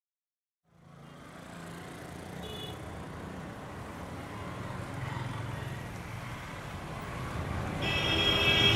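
Busy city street ambience fading in from silence and growing louder: a steady hum of traffic and crowd noise, with a vehicle horn sounding near the end.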